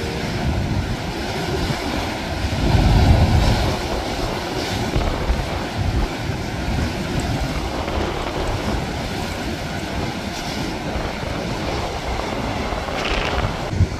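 Heavy surf breaking against a rocky limestone cliff, a steady churning rush with one bigger wave surge about three seconds in, mixed with strong wind buffeting the microphone.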